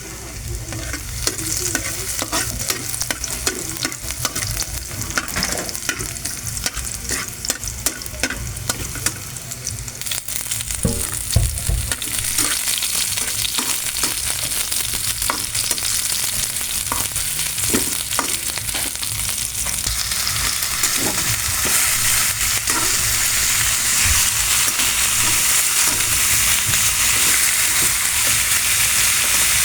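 Chicken and carrots sizzling in a frying pan, with a utensil knocking and scraping as they are stirred during the first third. The sizzle then grows into a steadier, louder hiss, building again near the end.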